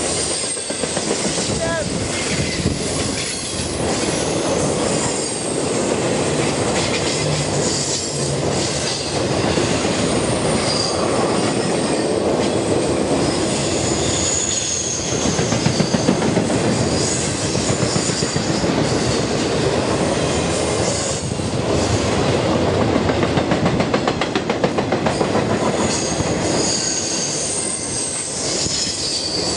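Train rolling past at close range: a steady rumble with rapid rhythmic clacking of wheels over rail joints, and thin high wheel squeal that comes and goes.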